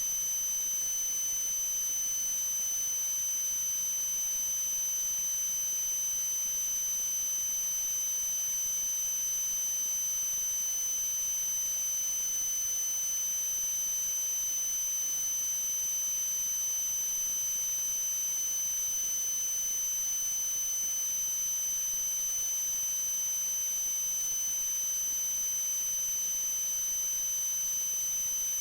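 Steady high-pitched electronic tone over an even hiss, unchanging in pitch and level, with no knocks or other events.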